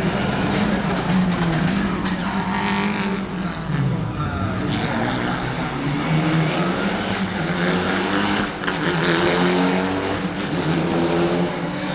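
Rally car engine running hard at high revs. The note rises and falls, with brief dips about four and about eight and a half seconds in.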